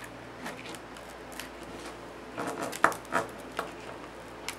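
Light clicks and rustling scrapes of a steel hose-end socket being handled and slid onto braided stainless steel hose, with one sharper click just under three seconds in.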